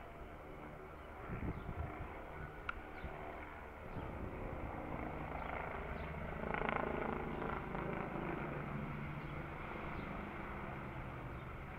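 Police helicopter flying overhead: a steady rotor and engine drone that swells to its loudest a little past halfway.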